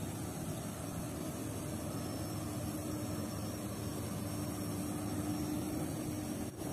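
Heavy logging truck's diesel engine running steadily, a low drone with a steady hum over it and a brief dip near the end.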